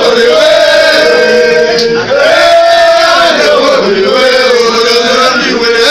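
A group of mostly male voices singing a chant-like song together, loudly, with long held notes that glide from one pitch to the next.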